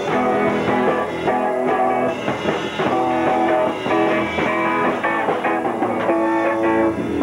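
Amateur rock band playing, an electric guitar to the fore with a quick run of single notes over the band.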